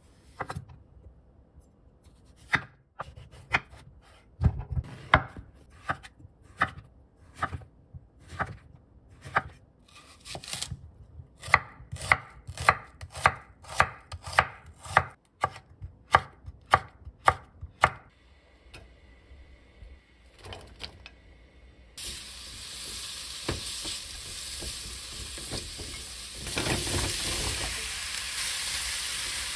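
Chef's knife cutting a round squash and then an onion on a wooden cutting board: a long run of sharp chops, sparse at first, then a faster, evenly spaced run. About two-thirds of the way in a pan starts sizzling, and the sizzle grows louder as the sliced squash goes into the hot oil near the end.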